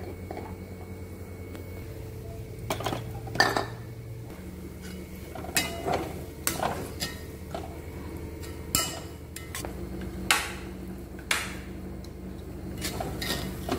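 Metal spoons clinking and scraping against a kadai as upma is stirred and scooped out onto plates: about a dozen sharp, separate clinks over a steady low hum.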